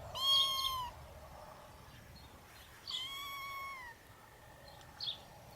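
A kitten meowing twice, two thin high-pitched mews just under a second each, about three seconds apart.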